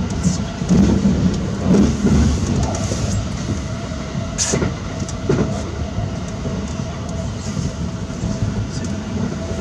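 E353 series electric limited express train running at speed, heard from inside the passenger car: a steady rumble of wheels on rail with a faint steady hum, and two sharp clicks about halfway through.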